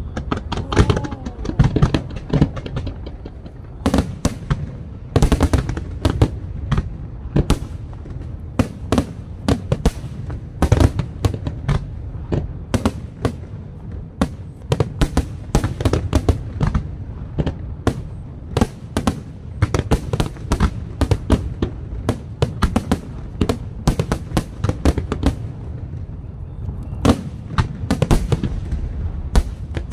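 Aerial fireworks shells bursting in a rapid, continuous barrage of sharp bangs over a low rumble.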